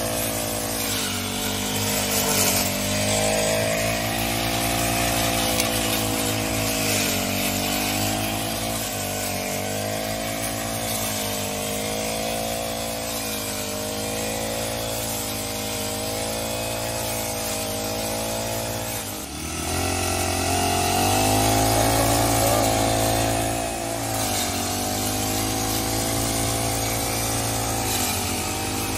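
ChuangChao backpack brush cutter's small petrol engine running at high speed, its pitch repeatedly dipping and recovering as the nylon-line head bogs into tall, thick grass. A short break about two-thirds through, after which it runs a little louder.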